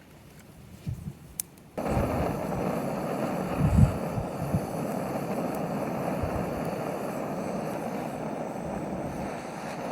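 Cedar Swedish torch burning, its flames making a steady rushing noise with a few low thumps, starting abruptly about two seconds in.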